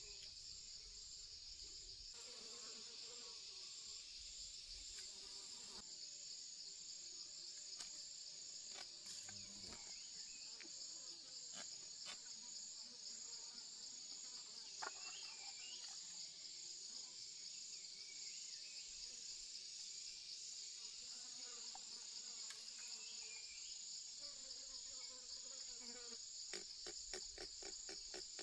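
Steady high-pitched insect chorus, with scattered faint clicks and knocks and a quick run of taps near the end.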